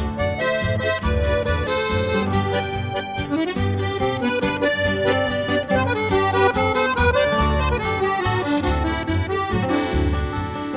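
Instrumental background music with sustained chords over a regular bass line.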